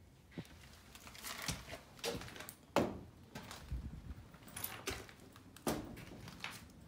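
Irregular knocks and clunks of a steel cabinet being handled, its door and shelves knocked as it is poked around, the loudest knock a bit under three seconds in.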